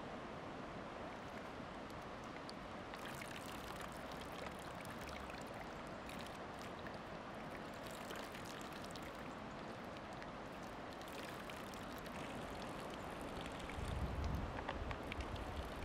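River water trickling and lapping at a reedy bank, a steady wash full of fine crackling drips. Near the end there is a low rumble of wind on the microphone.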